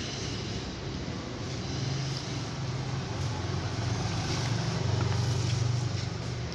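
Steady low engine rumble of a motor vehicle, growing louder about five seconds in and easing off near the end.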